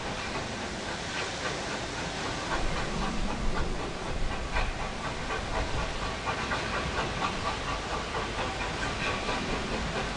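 Steam tram train running past at a distance: a steady hiss of steam with an irregular rattle of the carriages and wheels on the rails, over a low rumble.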